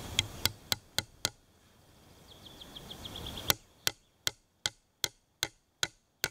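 A nail being hammered into a debarked wooden pole: five quick blows, a pause, then a steady run of eight more at a little over two a second.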